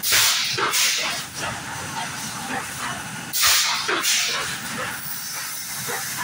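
PET bottle blow moulding machine cycling: a loud double hiss of compressed air blowing and venting at the start and again about three and a half seconds in, with the machine's steady running noise between.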